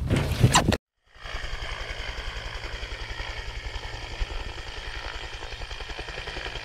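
Music that cuts off abruptly under a second in. After a brief silence comes a helicopter running on the ground: the turbine makes a steady whine over the fast, even beat of the rotor.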